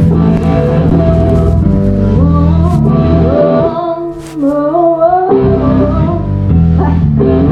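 Live rock band playing loudly: heavy electric guitar and bass hold sustained low notes, while a higher melodic line slides up and down in pitch over them. The low notes drop out for about a second and a half in the middle, then come back.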